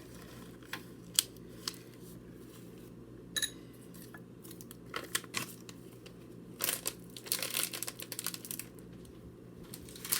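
Kitchen clean-up: scattered light clicks and knocks of items being moved, with a spell of crinkling and rustling about two-thirds of the way through, over a steady low hum.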